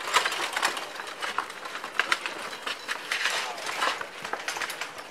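Several people's feet scuffing and scraping on sandy dirt ground during a casual football game, a dense run of irregular scrapes and soft knocks.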